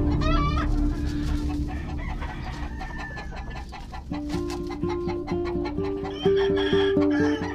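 Leiper Blue Mug gamecock calling: a short call right at the start and a crow starting near the end, over background music with a slow melody that comes up about halfway through.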